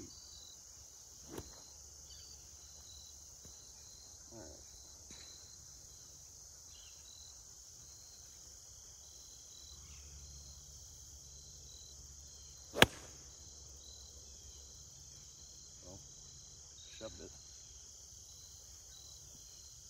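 Golf iron striking a ball off the tee: a single sharp crack about two-thirds of the way in, over a steady high chirring of insects.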